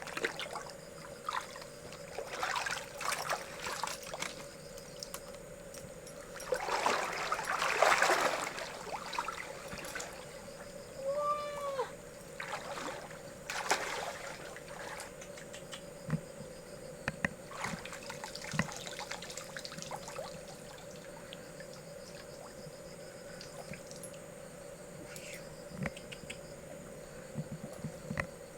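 Shallow river water splashing and trickling in scattered bursts, with a longer, louder stretch of splashing about seven seconds in.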